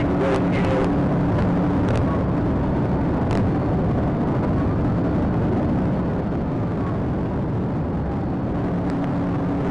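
Police patrol car driving at high speed in a pursuit: steady, loud road, wind and engine noise, with a few brief clicks.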